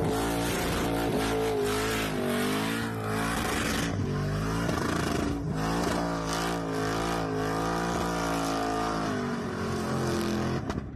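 Supercharged engine of a Holden HJ ute held at high revs during a burnout, its pitch wavering up and down, over a hiss from the spinning rear tyres.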